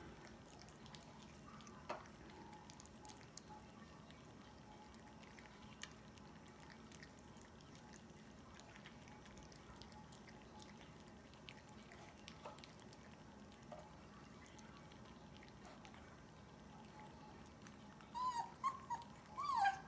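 A 31-day-old German Shepherd puppy eating kibble and scrambled egg from a bowl, with faint chewing and soft clicks. Near the end it gives a few short whines that rise and fall in pitch.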